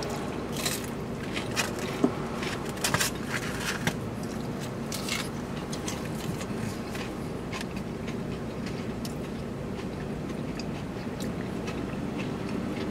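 Eating sounds: chewing plus the scrape and crackle of fried fish being handled in takeout containers, with short clicks thickest in the first few seconds. A steady low hum runs underneath.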